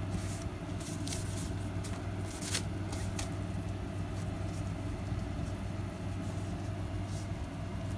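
Gloved hands scrunching and handling wet dyed silk ribbon on waxed deli paper: a few short rustles and crinkles, mostly in the first three seconds, over a steady low hum.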